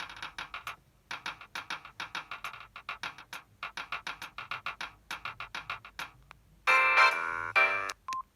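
Preloaded polyphonic ringtone on a Samsung SGH-D600 mobile phone: a long run of short, quick synthesized notes, then a louder, fuller passage about seven seconds in, ending in a brief single tone.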